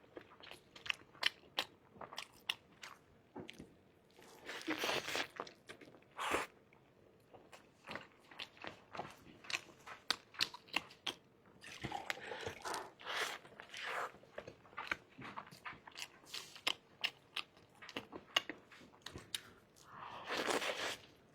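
A person eating close to the microphone: repeated crisp, crunchy bites and chewing, with a few longer noisy stretches of about a second between them.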